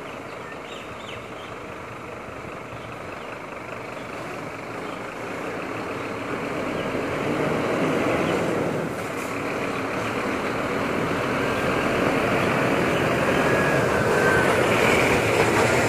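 Scania P310 refuse truck's diesel engine running as the truck drives slowly closer, growing steadily louder as it pulls up alongside.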